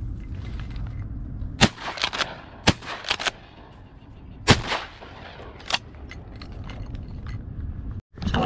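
Shotgun fired: two loud blasts about three seconds apart, with several quieter sharp cracks between them and one more after.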